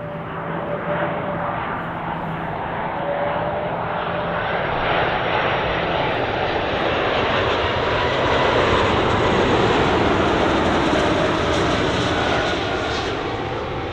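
Jet engines of an Airbus A330-200 airliner passing by at low height. The roar builds to a peak past the middle, its pitch drops as it goes past, and then it eases off a little.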